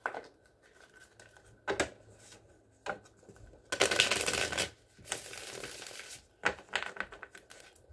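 A tarot deck being shuffled and handled: scattered card clicks and taps, with a dense rustle of shuffling about four seconds in and a steadier one just after.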